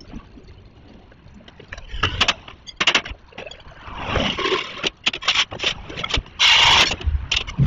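Street repair work with hand tools: repeated sharp knocks and scrapes on concrete, and a longer loud scrape about six and a half seconds in. A car passes about four seconds in.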